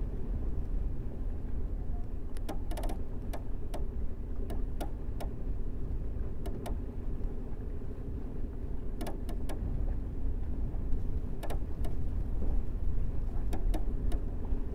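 Steady low rumble and hum aboard a sailing clipper under way, with scattered sharp clicks and ticks from the rig. A quick rattle of clicks comes about three seconds in, and more come in small clusters later.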